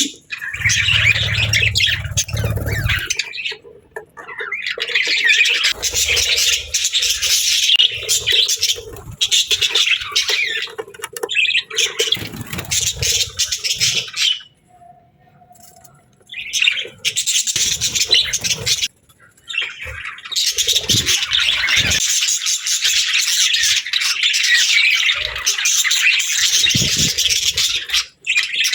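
Budgerigars chirping and chattering in a fast, dense warble, with a pause of a second or two about halfway through. A low rumble sits under the chatter in the first few seconds.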